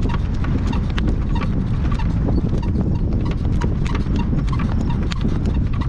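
Hooves of a harness horse at a working trot, a quick, regular clip-clop of several hoofbeats a second over a steady low rumble.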